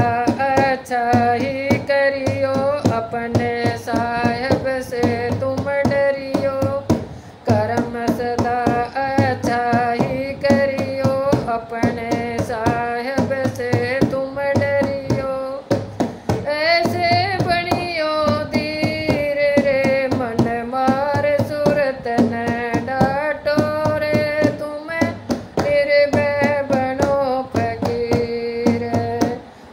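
Devotional bhajan music: a wavering melody line over a steady drum beat.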